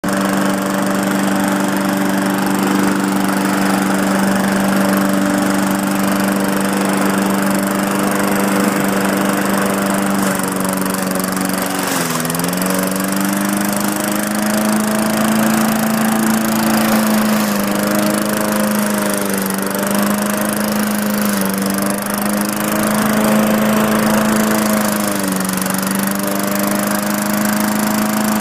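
Briggs & Stratton 4.0 hp single-cylinder mower engine running steadily at speed, its carburetor freshly cleaned of gunk and water so it now keeps running. Its speed dips briefly about 12 seconds in and a few more times after, then recovers, as the mower is pushed through the grass.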